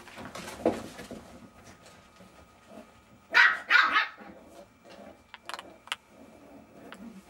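Jack Russell Terrier puppies at play, one giving two quick high barks a little past three seconds in, amid scuffling and a few light clicks.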